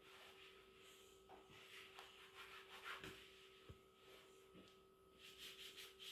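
Near silence: faint scattered scratching and rubbing sounds with a few soft clicks, over a steady faint electrical hum.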